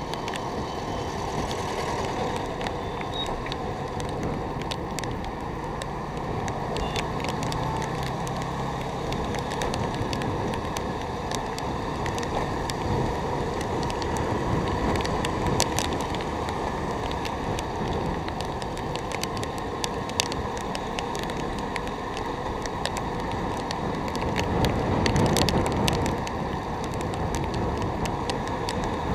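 Two-wheeler ride in traffic heard from a camera mounted on the bike: steady engine and road noise with scattered light clicks and taps, swelling louder for a couple of seconds about 25 seconds in.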